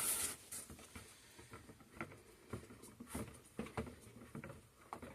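Spatula scraping the sides of a container of soap batter, with a brief scrape at the start, then a scatter of light, irregular taps and clicks against the container.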